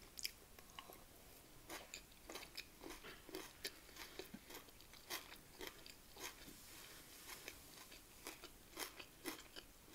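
Faint chewing of a mouthful of rice and beef mince: soft, irregular wet mouth clicks, a few a second.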